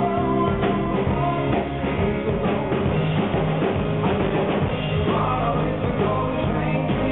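Two male voices singing a duet over a live band with drums.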